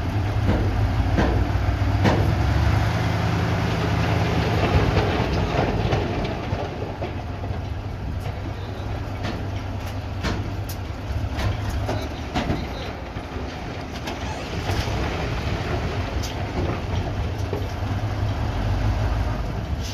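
Nissan Diesel dump truck's diesel engine running steadily as gypsum rock slides and clatters out of the raised tipper bed, with scattered knocks of falling stones. The engine is louder over the first six seconds and again near the end.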